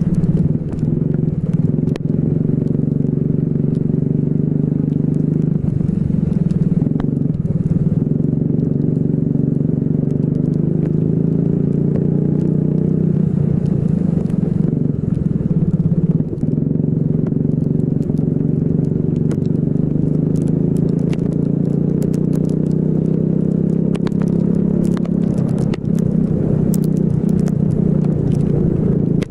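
Racing kart engine running at high revs through a lap in the rain, its pitch steady except for brief dips about a second in, around six to seven seconds in and around sixteen seconds in. Scattered sharp ticks sound over it, more often near the end.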